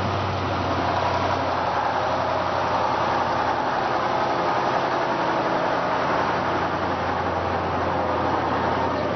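A large engine running steadily: a constant low hum under an even rushing noise.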